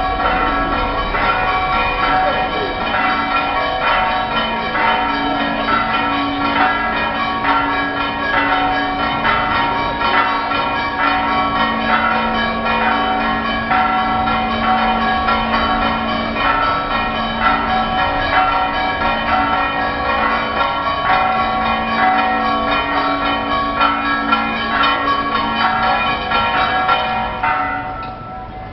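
Several church bells ringing together in a rapid, dense peal, their tones overlapping, fading out near the end.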